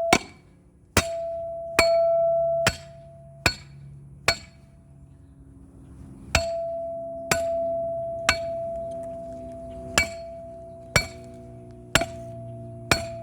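Hammer pounding a steel fence-post anchor spike into the ground: about a dozen metal-on-metal strikes, roughly one a second with a short pause midway, most leaving a ringing tone.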